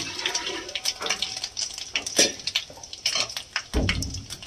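Panch phoron seeds sizzling and crackling in hot oil in a kadhai, a steady hiss dotted with small pops, with a dull knock about four seconds in.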